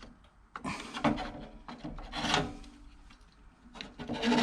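Rubbing and scraping of a computer part being worked past a little clip that catches inside an old PC case, with a few light clicks.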